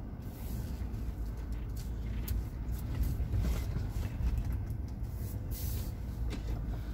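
Car driving, heard from inside the cabin: a steady low rumble of engine and road noise, with a few light clicks.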